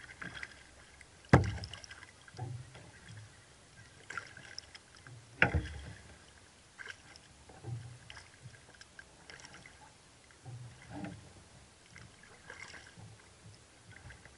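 Sea kayak being paddled: the paddle blades dip and splash in the water every second or two, with low thuds through the fibreglass hull and drips between strokes. Two sharp knocks, about a second and a half and five and a half seconds in, are the loudest sounds.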